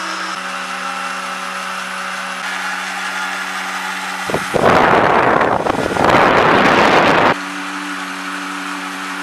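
Small electric motor of a homemade seed-shelling machine running with a steady hum. Near the middle, a loud harsh noise joins it for about three seconds, then stops, leaving the hum.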